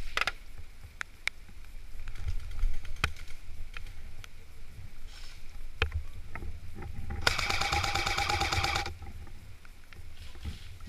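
Rapid burst of full-auto airsoft gunfire about 7 s in, lasting about a second and a half. Around it are scattered single sharp clicks and a low rumble of wind and movement on the microphone.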